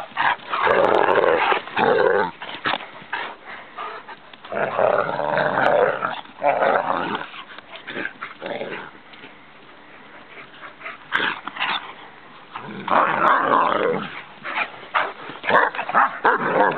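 Two large rough-coated hounds growling at each other in rough play, in loud rasping spells of a second or two, with a quieter stretch about two-thirds of the way through.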